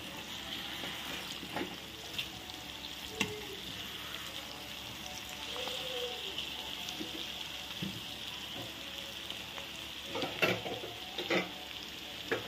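Dried fish frying in oil with sliced onions and curry leaves, making a steady sizzle. A spatula stirs and scrapes against the pan, with a few louder knocks near the end.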